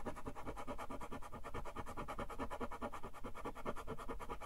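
Scratch-off coating on a trading card being scraped with a small Millennium Falcon model, in rapid, even back-and-forth strokes.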